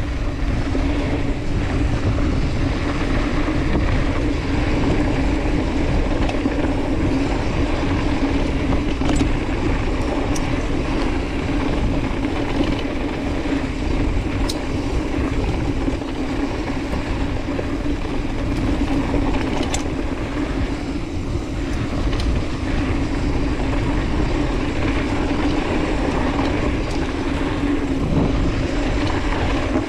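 Mountain bike running fast down a dirt singletrack: a steady rush of tyre noise and wind buffeting the camera's microphone, with a constant low hum and a few faint sharp ticks from the bike and trail.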